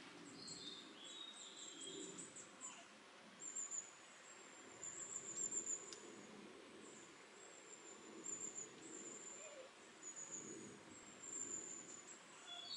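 Faint high-pitched birdsong: short trilled phrases repeating through the whole stretch, with a few lower notes in the first couple of seconds, over a soft low background rumble.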